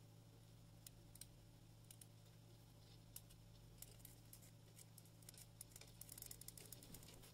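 Near silence: faint, scattered small clicks and rustles of hands winding thread around a tiny wire ring on a plastic fishing side nod, over a steady low hum.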